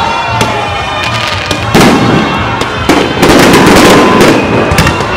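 Fireworks going off, with rockets launching in a rapid string of bangs and crackles. The loudest stretch is a dense crackling burst about three to four seconds in, and a thin, steady high tone runs through it.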